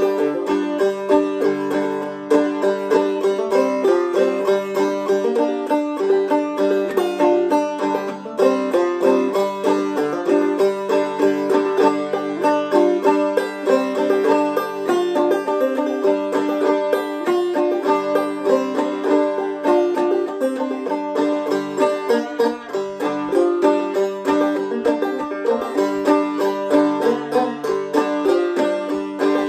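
Deering Vega Senator open-back five-string banjo played clawhammer style: an old-time tune with a steady rhythm that runs without a break.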